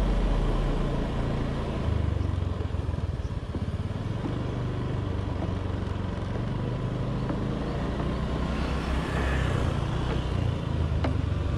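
Honda automatic scooter riding along, its small engine running under a steady, uneven rumble of wind on the rider's camera. Another scooter comes up close alongside near the end.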